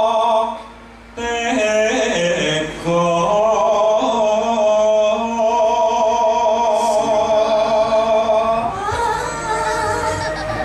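A singer holding long, wavering notes into a stage microphone, with a short break about a second in and the pitch stepping up near the end.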